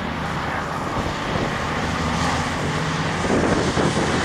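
Consolidated PBY-5A Catalina's twin radial engines droning steadily in flight, growing louder a little over three seconds in as the aircraft comes closer.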